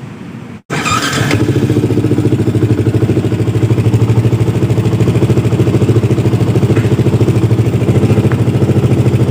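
Yamaha R15 V2's 150 cc single-cylinder four-stroke engine idling steadily with an even pulsing beat, coming in loud just under a second in.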